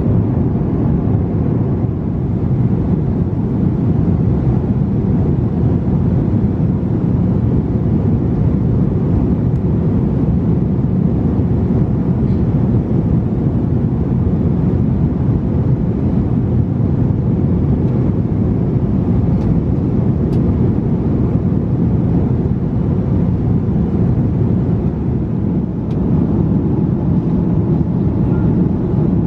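Steady low rumble of engine and airflow noise in the economy cabin of an Airbus A330-300 in flight, with a few faint clicks.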